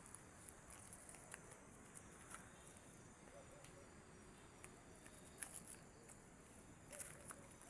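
Faint, steady high-pitched insect chirring, typical of crickets, with scattered light clicks and two brief faint wavering calls, about three seconds in and near the end.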